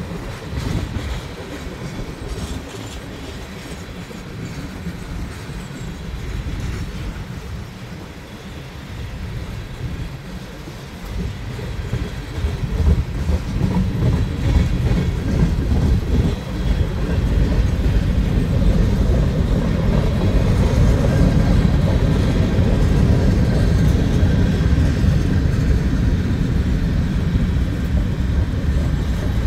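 Freight train rolling past at close range, its tank cars and then covered hopper cars running on steel wheels over the rails; the sound grows louder about twelve seconds in and stays steady.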